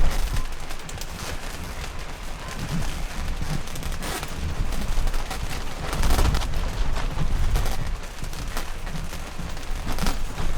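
Strong gusty wind buffeting the microphone as a deep, uneven rumble, with tent fabric flapping and snapping irregularly; a stronger gust comes about six seconds in.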